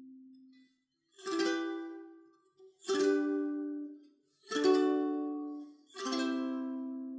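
Ukulele playing slow single strummed chords about every second and a half, each left to ring out and fade.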